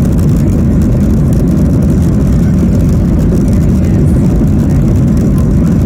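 Boeing 737-800 cabin noise: a steady, loud low rumble of its CFM56 turbofan engines and the airflow, heard from inside the passenger cabin.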